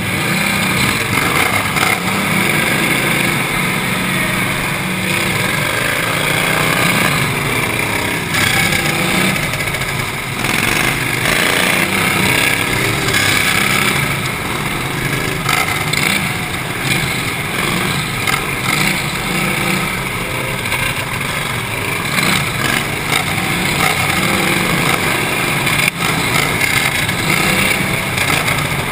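Outlaw racing lawnmower's engine running at high revs, heard from the driver's seat. The note swells and dips as the throttle is worked around the laps.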